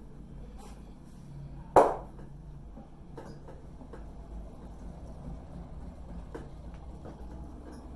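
A single loud, sharp smack about two seconds in, from the masseur's hand striking during a head massage, over faint rubbing and a few light taps.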